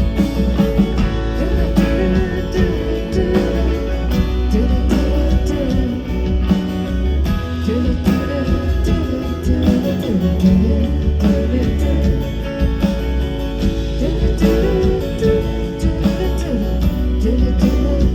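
Live band music, guitar-led with a steady low bass, playing through a stretch without lyrics.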